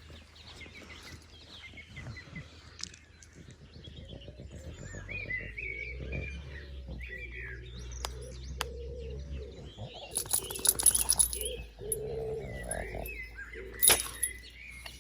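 Birds calling in short chirping phrases, with a loud rustling burst about ten seconds in and a sharp click near the end.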